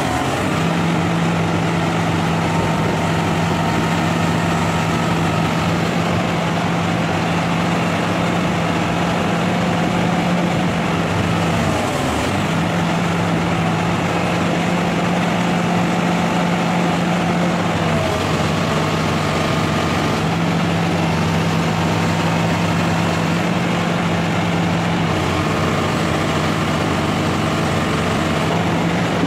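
Hitachi ZX350-5G excavator's diesel engine running steadily under hydraulic load while the boom is worked in a test after a regulator adjustment meant to cure a boom that won't lower and drifts down. Its steady hum breaks briefly three times.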